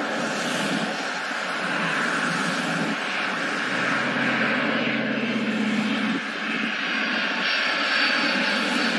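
Jet engines of a SriLankan Airlines Airbus A330 on landing approach, a steady roar from the recording playing on the laptop. A high whine comes in near the end as the plane passes close overhead.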